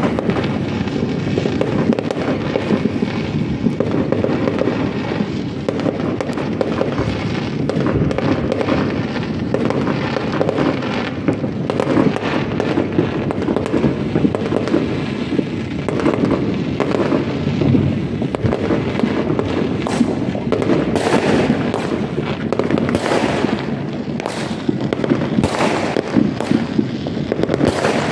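Aerial fireworks going off in a dense, continuous barrage of pops, crackles and bangs. The sharp cracks come thicker in the last third.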